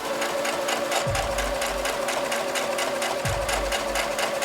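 Brother SQ9185 computerized sewing machine stitching a straight seam through a piece of vinyl: a fast, steady run of needle strokes.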